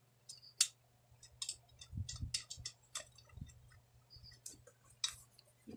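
Irregular light metallic clicks and ticks of steel spokes and spoke nipples knocking against each other and the rim as the last spokes are fitted into a motorcycle wheel, with a few duller knocks about two to three seconds in.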